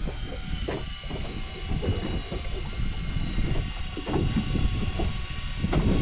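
Wind buffeting the microphone at sea, a low uneven rumble, with a few short knocks or grunts about a second in and near the end.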